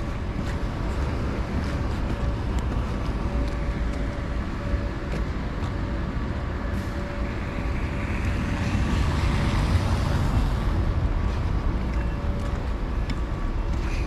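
Street traffic over a steady low rumble; a vehicle passes on the slushy road, its tyre hiss swelling to a peak about nine to ten seconds in and then fading.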